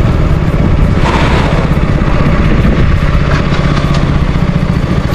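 KTM RC 125's single-cylinder engine running at low revs as the motorcycle rolls slowly up to a fuel pump and stops, with a brief rush of noise about a second in.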